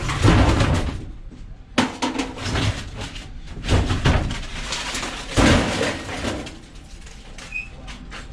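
A few loud clattering bangs and knocks, metal being handled, coming every second or two and dying down near the end.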